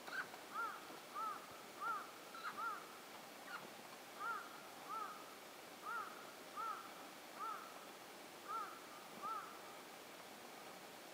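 An animal calling repeatedly: about a dozen short calls, each rising then falling in pitch, evenly spaced under a second apart, stopping a little before the end.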